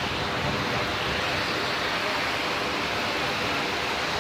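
Shallow ocean surf washing in around the feet, a steady rush of seawater and foam.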